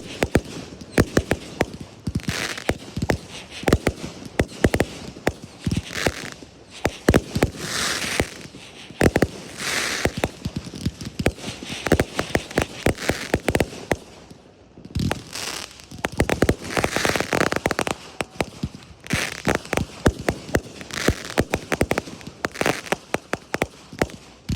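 Fireworks going off in a rapid, irregular stream of sharp bangs and pops, with spells of crackling every couple of seconds and a brief lull about two-thirds of the way through.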